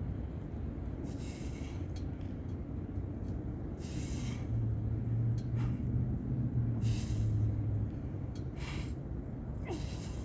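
A man breathing hard through chin-ups, sharp breaths about every two to three seconds over a steady low rumble. A louder low hum rises in the middle for a few seconds.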